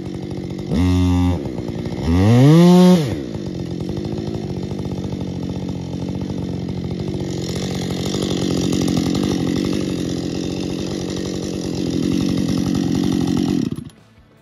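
Husqvarna chainsaw revving briefly twice, then held at full throttle under load, cutting the directional notch in a thick spruce trunk for about ten seconds. The saw then cuts off suddenly near the end.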